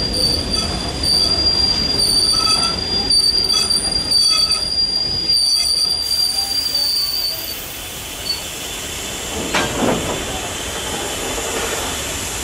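Steel wheels of slow-moving heritage passenger carriages squealing against the rails: a steady high-pitched squeal that stops about seven seconds in. Under it the rolling rumble of the passing train goes on, and a brief falling sound comes about ten seconds in.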